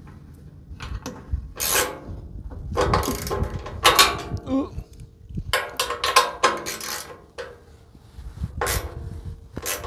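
Hand socket ratchet clicking in several short spells as a bracket bolt is tightened down.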